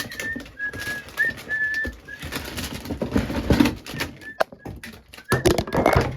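A person whistling a tune in short, steady notes, over rustling and clattering of things being handled, with a cluster of knocks near the end.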